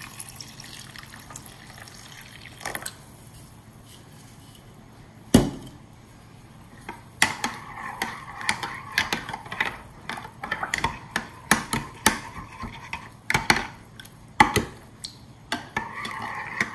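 Warm water pouring into a ceramic mug of dried yeast, then a metal spoon stirring the mixture, clinking repeatedly against the mug's sides. A single sharp knock comes a little over five seconds in.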